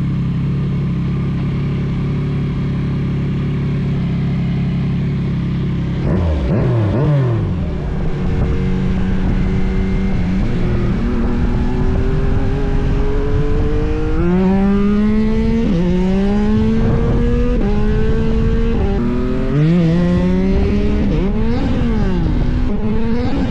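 Motorcycle engine running at a steady idle, then accelerating hard: the note climbs, drops back sharply and climbs again several times as it shifts up through the gears.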